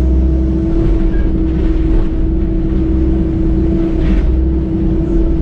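Excavator's diesel engine running steadily, a low rumble with a constant hum.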